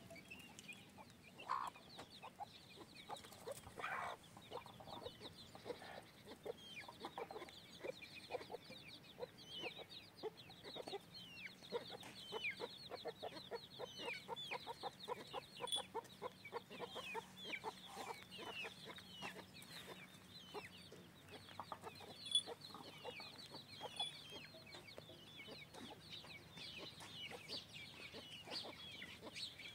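Chickens clucking in quick runs of short clucks, with many brief high chirps falling in pitch over the top.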